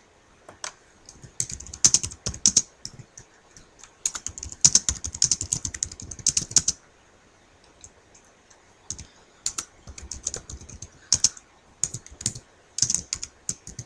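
Typing on a computer keyboard: runs of quick key clicks in several bursts, with short pauses between them.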